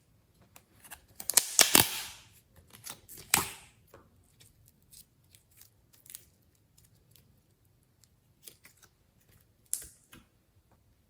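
Glossy slime being squished and stretched by hand, giving sticky crackles and small air-bubble pops. A dense burst of crackling comes between one and two seconds in, with another loud pop at about three and a half seconds, then only scattered small clicks and one more pop near the end.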